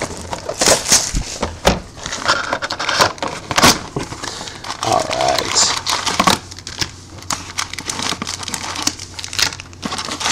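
Plastic wrapping on a sealed box of football trading cards crinkling and tearing as it is pulled open by hand, with many sharp crackles and rustles.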